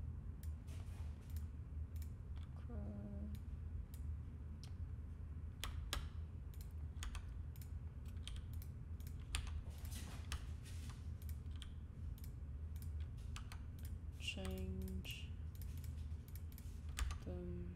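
Computer keyboard keys and clicks tapped at an irregular pace as the user works, over a steady low background hum.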